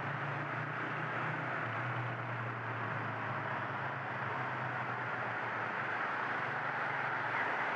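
Motorcycle riding through city traffic: steady wind and road noise with a low engine hum that fades about halfway through.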